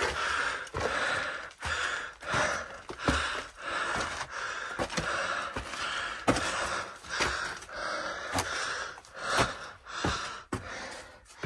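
A hiker breathing hard, a quick even run of panting breaths about one and a half a second. Scattered sharp clicks and scuffs of footsteps on gravel and rock sound between the breaths.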